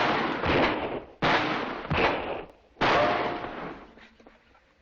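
Revolver fire in rapid succession: four shots about three-quarters of a second apart following one already echoing, each with a long ringing echo. The last comes about three seconds in and dies away.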